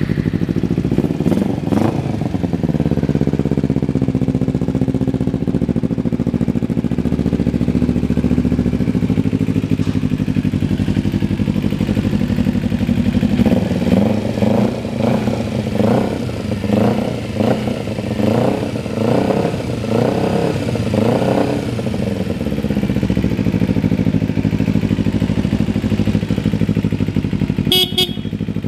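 2012 Kawasaki Ninja 250R's parallel-twin engine running at idle, with a brief rev about two seconds in. Around the middle it is blipped in a quick series of about a dozen throttle revs, roughly one and a half a second, then it settles back to a steady idle.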